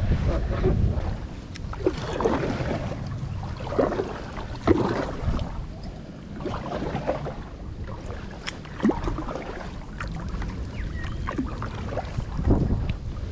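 Kayak paddling: paddle blades splashing and dripping in calm creek water every second or so, over a low rumble of wind on the microphone.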